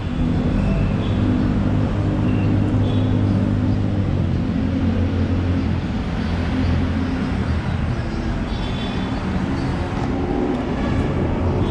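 Street traffic: a nearby vehicle engine running steadily with a low hum, over general road noise.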